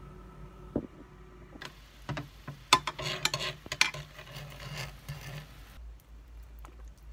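Sugared broth bubbling and spitting as it boils in a ceramic baking dish on an induction cooktop, a crackling hiss with sharp pops that starts about a second and a half in and cuts off suddenly near the end. A metal spoon clinks against the dish a few times.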